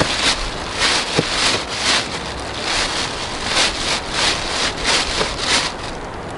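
Spinning reel being cranked during a lure retrieve: a rhythmic swishing whir about three times a second that stops near the end.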